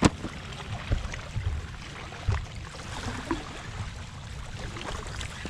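Steady low rumble of wind and surf on the microphone, with a few scattered knocks from handling.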